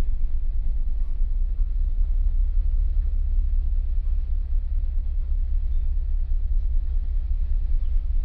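Car ferry's engines running with a steady low rumble.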